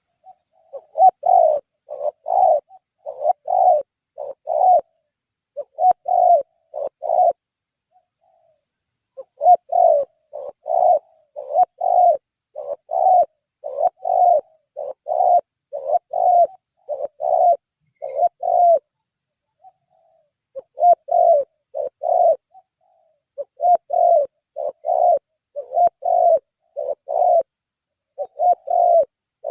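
Spotted dove (tekukur) cooing over and over in phrases of two to four low notes, with short pauses about 8 and 19 seconds in. A faint high chirp repeats steadily in the background.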